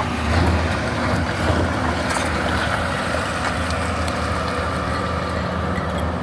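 JCB NXT 225LCM tracked excavator's diesel engine running steadily under load while loading rock, a constant low drone with a noisy mechanical layer above it.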